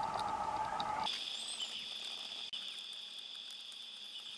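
A steady, high insect-like chorus. About a second in, its pitch jumps abruptly from a middle band to a much higher one.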